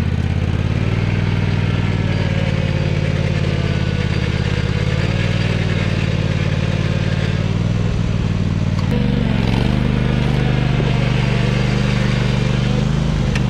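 Craftsman DGT6000 garden tractor's Kohler engine running steadily under load as the tractor creeps up a wet grassy slope on super lug agricultural tires. The engine note shifts and grows a little louder about nine seconds in.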